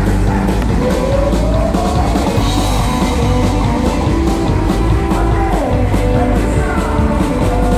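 Live country-rock band playing loud: electric and acoustic guitars, fiddle and drums over a heavy bass, keeping a steady beat, with notes that slide up and down.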